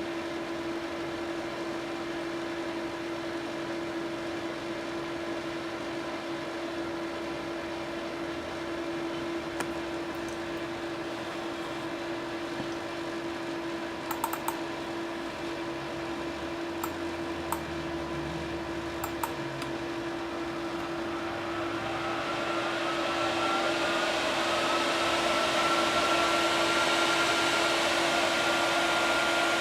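Graphics card cooling fans of three EVGA GTX 970 SC cards running steadily with a constant hum and tone, with a few sharp clicks in the middle. About 22 seconds in, the fans spin up: a rising whine that levels off, much louder, as they ramp to full speed.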